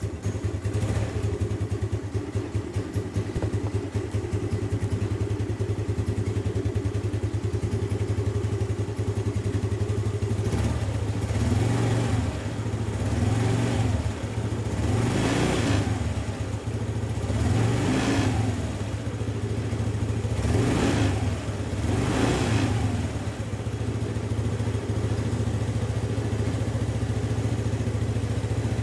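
SYM Jet Power 125 scooter's single-cylinder engine running steadily, with the throttle blipped about six times in the middle, each rev rising and falling back to idle. This is a charging test: the battery stays at about 12 V even when revved, the sign of a faulty stator coil that is not charging the battery.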